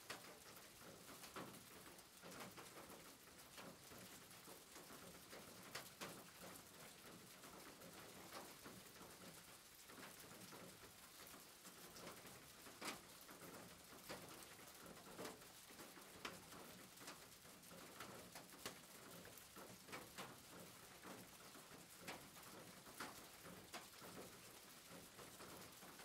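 Faint rain falling on a roof: a steady soft hiss with scattered, irregular taps of single drops.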